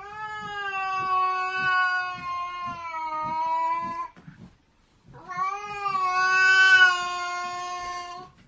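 Domestic cat yowling: two long, drawn-out calls, each held at a nearly steady pitch, the second coming after a pause of about a second. This is the warning yowl of an angry cat.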